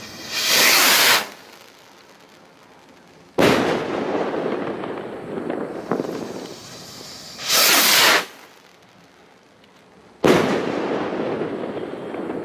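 Two firework rockets from Funke's 13 Himmelsstürmer assortment. Each one lifts off with a short, high hissing whoosh and bursts about three seconds later with a sharp bang that trails off over about two seconds. The first launches just after the start, the second about seven seconds in.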